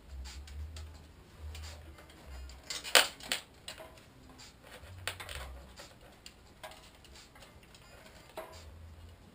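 Loose metal bicycle chain clinking and clacking as it is handled and fed through the bike's gears, in irregular clicks with one sharp clack about three seconds in, over dull bumps of handling.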